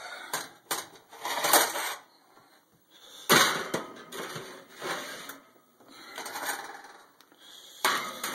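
Metal baking pans scraping and clanking against oven racks as they are slid into the oven, in several irregular bursts with the sharpest clank just over three seconds in.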